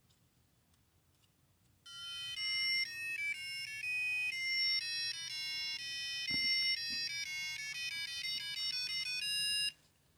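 McDonald's 2001 Tiger Electronics Furby toy playing its electronic beeping tune through its small speaker, powered by fresh LR41 batteries after battery corrosion was cleaned from its contacts. The tune starts about two seconds in, steps quickly from note to note, and cuts off abruptly near the end.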